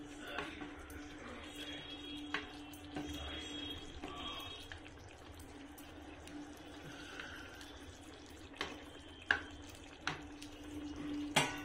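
Thick egg curry gravy simmering and bubbling in a non-stick kadai, with a steady low hum underneath. A few sharp clicks and pops come through, more of them in the second half.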